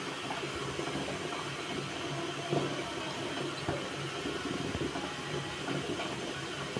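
Water boiling steadily in a steel pot beneath a perforated colander of steaming pitha, with a few faint light clinks now and then from a spoon on the steel.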